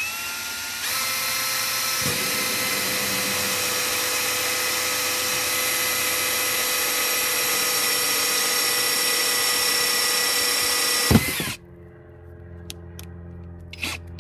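Power drill fitted with the hole-cutter bit from a parking-sensor kit, cutting a sensor hole in a car's rear bumper. It runs as a steady high whine after finishing its spin-up about a second in, then gives a sharp click and stops abruptly near the end as the hole is finished.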